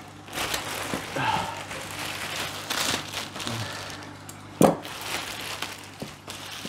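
Thin plastic bag liner crinkling and rustling as it is pulled and handled over a cardboard box, with one sharp knock about two-thirds of the way through.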